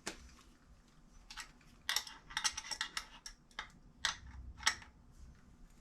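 Irregular small metallic clicks and clinks of a fuel line fitting and hand tools being worked into a throttle body, bunched in two clusters about two and four seconds in.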